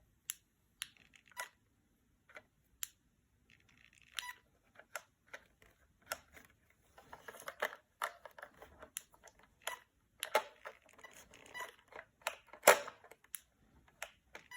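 Irregular sharp clicks and light plastic taps from a remote-control truck and its controller being handled and tried, sparse at first and coming thicker in the second half. The truck does not keep running, which the owner puts down to a faulty receiver.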